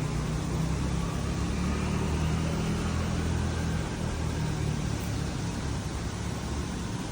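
Street traffic heard from a window: a steady wash of car engine and tyre noise, with a low rumble that swells in the first few seconds and then eases off.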